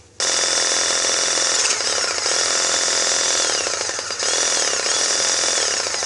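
Rothenberger battery pressing tool's electric motor running, starting just after the beginning, its whine sagging and recovering a few times. It is running on a battery that reads as charged but hasn't got enough juice, so the tool struggles.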